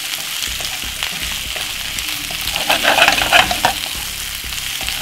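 Mixed vegetables sizzling in olive oil in a hot non-stick frying pan while being stirred with a wooden spoon, a steady hiss with small clicks and scrapes. About halfway through there is a louder spell of stirring and tossing.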